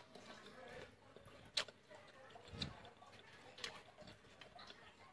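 Quiet eating sounds: a few sharp clicks, roughly one every couple of seconds, and a soft thud near the middle, as a fork is worked at a plate of grilled squid.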